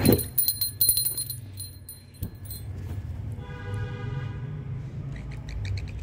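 Alexandrine parakeet at play: a burst of metallic jingling over the first two seconds or so, then a short pitched squeak about halfway and a quick run of chirps near the end.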